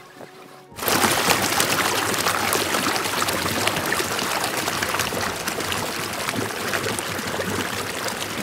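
Clear water running fast through a narrow stone-lined channel, heard up close as a steady loud rushing and gurgling. It cuts in suddenly about a second in, over faint music.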